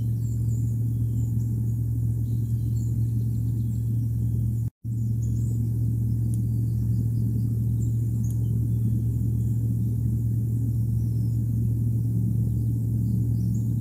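Steady low rumble with a strong hum, as picked up by an outdoor wildlife-cam microphone, with faint high chirps scattered over it. The sound cuts out completely for a split second about five seconds in.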